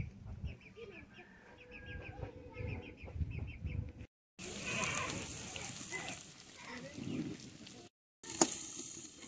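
Chickens clucking in quick runs of short calls. The sound cuts out abruptly twice; between the cuts there is a louder, steady hiss.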